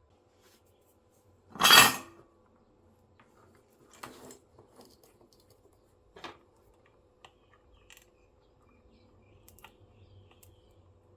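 Workbench handling noises: one loud clatter of small hard objects about two seconds in, then a couple of softer knocks and a few faint clicks.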